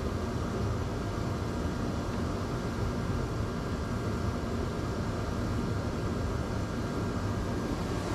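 Steady low rushing noise, like a running fan, with a faint steady hum above it and no distinct events.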